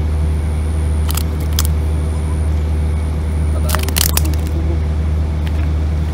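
A steady low machine hum, with two short clusters of sharp clicks about a second in and around four seconds in.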